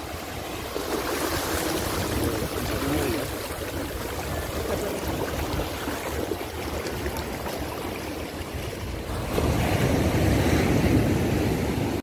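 Small waves breaking at the shoreline and washing up over wet sand, a steady rushing wash that grows louder about nine seconds in.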